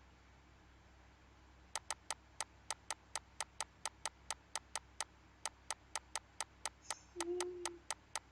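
A rapid series of sharp clicks, about four a second, starting a couple of seconds in and running on, with a brief low tone among them near the end.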